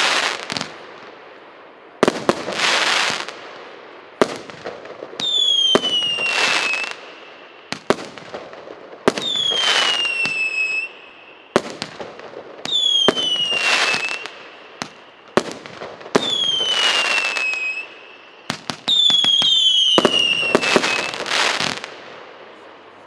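A 102-shot one-inch firework cake firing in sequence: sharp launch thumps, each followed by about a second of noisy burst, coming roughly every two seconds. Several shots carry a whistle that falls in pitch, five in all.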